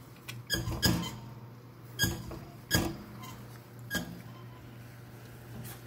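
Window shaking in the gusting wind: about five sharp, irregularly spaced knocks with a squeaky ring as the frame rattles, over a steady low hum.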